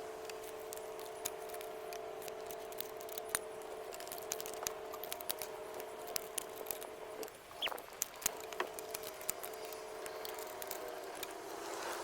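Scattered light metallic clicks and clinks as the alternating fiber and steel clutch plates are worked out of a Honda CRF250R's clutch basket, over a steady hum.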